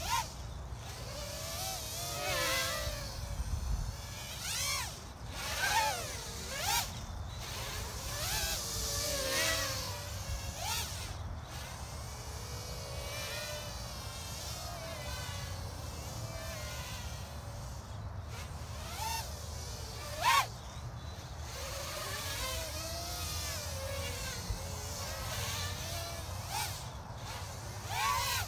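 Small 3-inch FPV quadcopter on 1105-size 6000 KV motors, a 3S battery and Gemfan 3025 propellers, buzzing as it is flown acro. Its whine glides up and down with the throttle, with several short sharp punches, the loudest about 20 seconds in.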